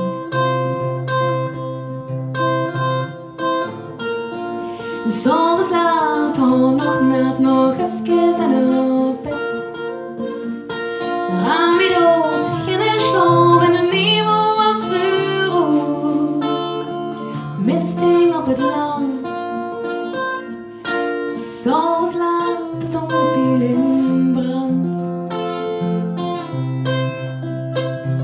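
A woman singing to a strummed acoustic guitar, her phrases coming in with gaps between them while the guitar plays on.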